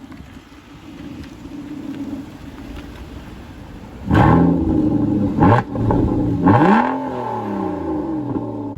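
A 2015 Aston Martin Vanquish's naturally aspirated 6.0-litre V12 idles, then is revved three times: a hard rev about four seconds in, a quick blip, and a third rev whose pitch falls slowly back to idle.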